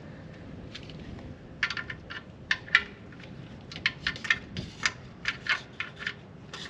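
Irregular sharp metal clicks and clinks, starting about a second and a half in: metal sockets being handled and fitted to the oil pan drain plug to find its size.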